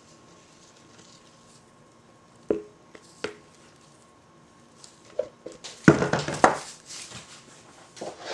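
Silicone spatula tapping and scraping against a mixing bowl as the last of the soap batter is scraped into the mold: two sharp taps about two and a half and three seconds in, then a louder bout of scraping and clatter around six seconds in.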